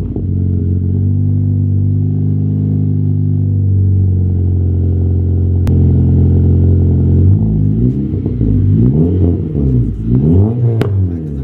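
2015 Honda Civic Si's 2.4-litre four-cylinder engine running at a steady idle, then revved in a series of quick throttle blips from about seven seconds in.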